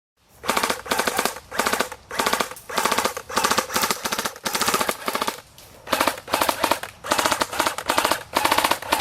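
Airsoft electric gun firing repeated short full-auto bursts, about two bursts a second, each a quick rattle of shots. It starts abruptly after a moment of silence.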